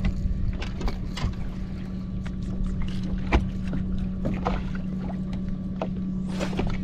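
Water slapping against a bass boat's hull over a steady low hum, with scattered small knocks. About six seconds in, a fishing rod swishes through an overhead cast.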